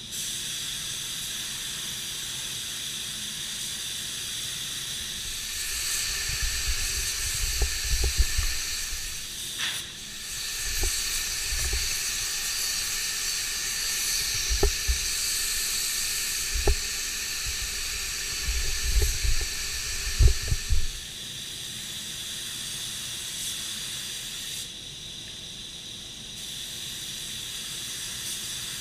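Compressed-air paint spray gun hissing as it sprays, over a steady background hiss; the spraying is louder through the middle stretch, with several dull knocks as the gun is handled.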